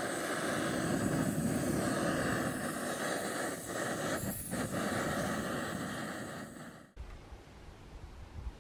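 Backpacking gas-canister stove burning at full flame under a lidded pot of water, a steady roar. It cuts off suddenly about seven seconds in, leaving a faint low rumble.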